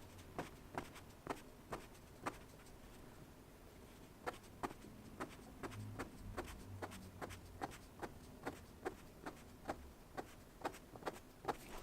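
Pen making short, quick strokes on drawing paper, a faint tick or scratch with each stroke at about two or three a second, pausing briefly about two seconds in.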